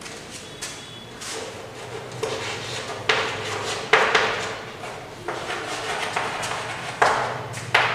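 Chalk writing on a blackboard: an irregular run of sharp taps and short scratchy strokes as letters are chalked on.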